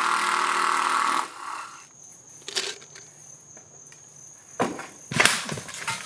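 A loud buzz for about the first second, then a single click, then a mountain bike landing hard off a tall wooden drop and crashing: a cluster of loud thuds and clatters of tyres, frame and rider hitting the dirt. A faint steady high insect buzz runs underneath.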